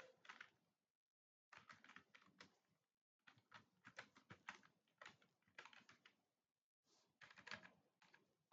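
Faint typing on a computer keyboard: runs of rapid keystroke clicks lasting a second or so each, with brief pauses between runs.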